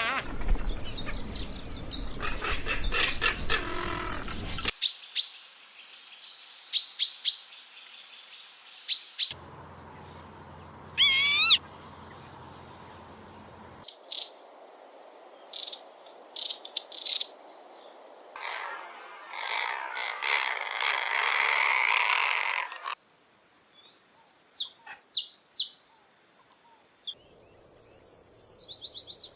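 Several different birds calling in turn, the sound changing abruptly every few seconds. It runs from rapid repeated notes to short high chirps about once a second, then a harsh, noisy call past the middle, and sparse chirps near the end.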